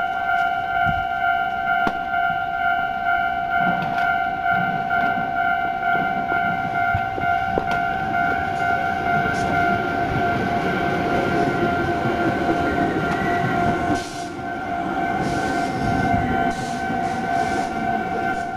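Japanese level-crossing warning bell ringing steadily in a repeating electronic ding. A Tobu Noda Line train passes over the crossing, rumbling with a few wheel clacks over rail joints; its noise drops off about fourteen seconds in while the bell keeps ringing.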